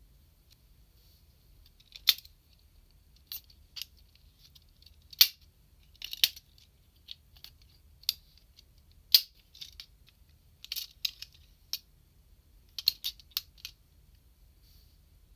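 Hard plastic parts of an SMP Gaoking model-kit robot clicking and snapping as they are handled and moved into place: a dozen or so sharp, scattered clicks, a few of them louder, with some in quick clusters about halfway through and again near the end.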